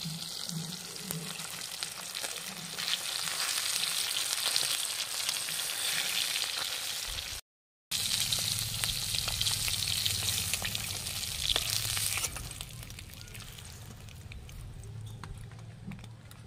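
Pieces of rupchanda (pomfret) fish frying in hot mustard oil in a steel karahi: a steady crackling sizzle with scattered clicks. The sound cuts out for a moment about halfway through, and the sizzle dies down over the last few seconds.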